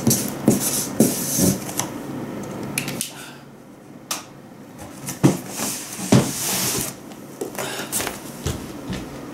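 Felt-tip marker squeaking and scratching on a cardboard box in short strokes during the first second or two. After that come scattered knocks, rubbing and shuffling as things are handled and moved.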